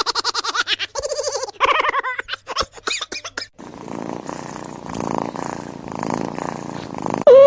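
Cat vocalising in rapid pulsing calls for about three seconds, then a rough steady purr-like rumble. A loud steady tone cuts in just before the end.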